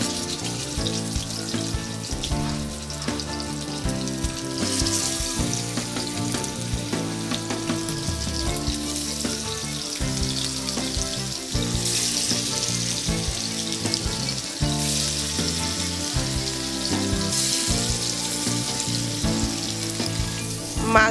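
Pieces of rohu fish sizzling as they fry in hot oil in a pan, a continuous hiss that swells now and then. Background music with changing notes plays under it.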